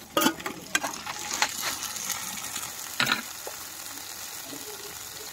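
Sliced onions and chopped tomatoes sizzling in hot oil in a non-stick pan. There are sharp metal knocks and scrapes against the pan in the first second, again at about a second and a half, and again about three seconds in.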